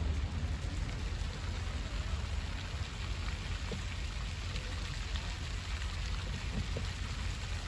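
Fountain water splashing in a steady rushing hiss over a low rumble.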